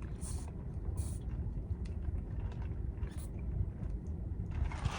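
Steady low rumble of a car's engine idling, heard inside the cabin, with a few faint short crackles.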